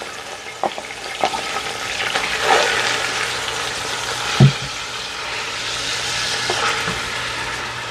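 Garlic and blended sofrito sizzling in olive oil in a pan. The sizzle swells about two seconds in and then holds steady, with a few light clicks and one louder knock about halfway through.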